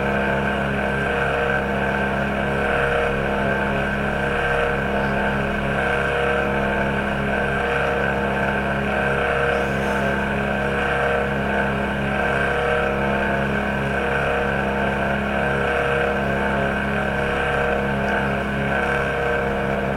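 Laptop GPU cooling fan running steadily: an even hum made of several steady tones. This is the strange noise that the owner suspects comes from the fan, the hard drive having been ruled out.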